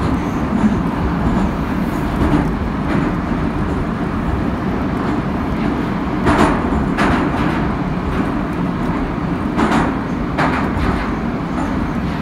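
Metro train running at speed, heard from inside the car: a steady low rumble and rattle of the wheels and car, with a few short, sharper rattles about six and ten seconds in.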